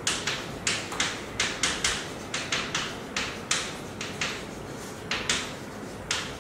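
Chalk writing on a chalkboard: short, sharp scratching and tapping strokes in an irregular run, about three a second.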